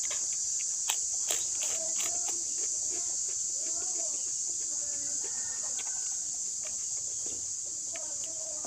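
Steady high-pitched drone of insects in the vegetation, with two sharp crunches about a second in as a crispy chip is bitten.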